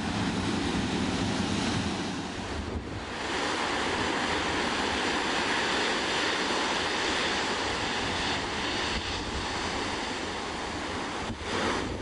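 Heavy storm surf breaking and rolling onto a beach in a steady rush of white water that dips briefly about three seconds in, with strong wind buffeting the microphone.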